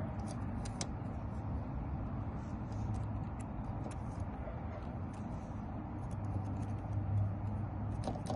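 Faint, irregular metallic clicks of a lock pick working the stuck wafers of a Ford Mustang lock, over a steady low hum.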